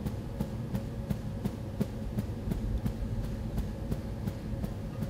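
Bare feet tapping on carpet in a steady beat: soft, dull thumps about three a second.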